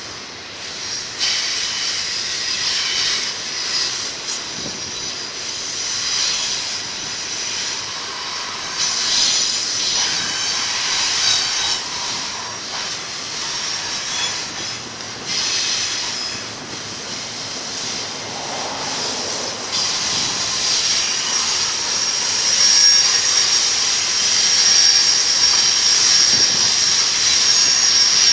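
Double-stack intermodal train's wheels squealing against the rails as the cars round the curves, over the steady rolling noise of the train; the high squeal comes and goes and grows louder near the end.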